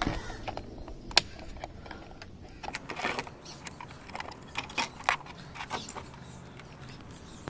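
Scattered clicks and plastic taps as a handheld digital multimeter is handled and its test leads are put to the car battery terminals, with one sharp click about a second in.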